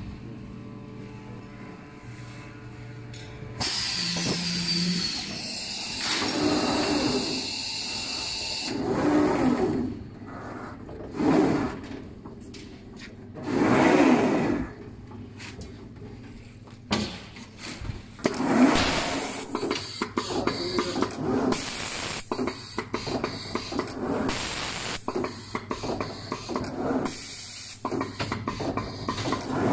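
Machinery of a CNC glass cutting line running: irregular surges of hiss and motor whir lasting a second or two, over a steady low hum. The second half has many short clicks and knocks.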